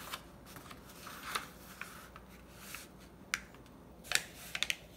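A sheet of paper rustling and crinkling as it is folded corner-down and smoothed flat by hand, with scattered sharp crackles, the loudest cluster about four seconds in.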